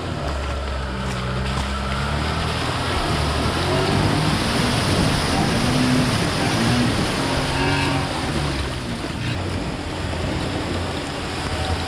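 Off-road 4x4 engine running under load, its pitch rising and falling as it is revved, over a dense steady rushing noise.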